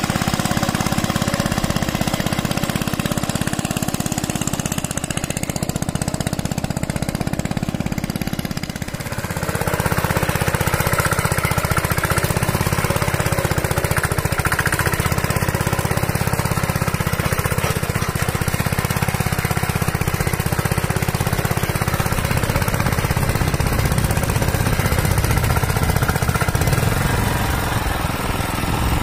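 The single-cylinder diesel engine of a traktor capung hand tractor runs with a rapid chugging beat while ploughing. The sound drops briefly a little over eight seconds in, then picks up again slightly louder.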